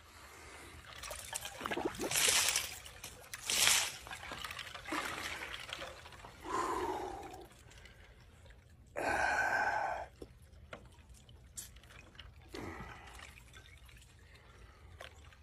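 A man sitting in an ice-cold water tank, gasping and crying out in short bursts, with one longer held cry about nine seconds in. Water splashes and trickles as he lifts his wet hat and moves in the tub.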